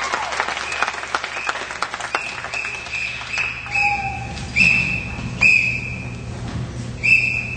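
Scattered applause thinning out, then a run of short high-pitched whistle-like tones, roughly one a second.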